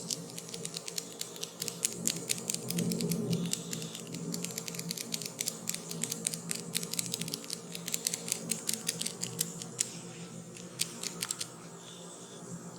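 Rapid, irregular crackling clicks from hands working the hair and scalp in a head massage, thinning out near the end, over a faint steady low hum.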